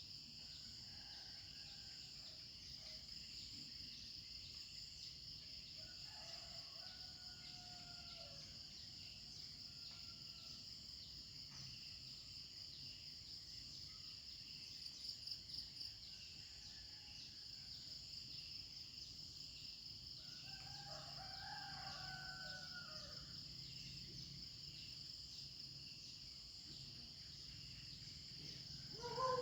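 Morning rural ambience: insects chirring steadily at a high pitch throughout, with roosters crowing faintly twice, about six seconds in and again about twenty seconds in.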